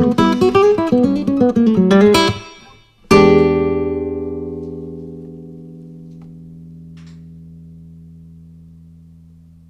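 Nylon-string classical guitar playing a quick fingerpicked samba line that stops about two seconds in. After a short pause a final chord is struck and left to ring, slowly dying away.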